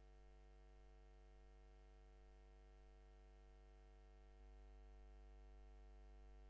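Near silence with a faint, steady electrical mains hum, which gets slightly louder about four and a half seconds in.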